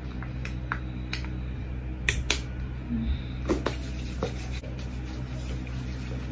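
A small hand sanitizer bottle clicking sharply as it is opened and dispensed into the palm, the loudest two clicks about two seconds in. After that comes the faint rubbing of hands spreading the sanitizer.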